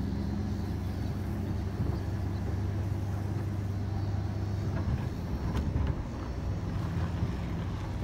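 Pickup truck engine running steadily as it drives slowly across grass, heard from the cab; the engine note shifts about five seconds in.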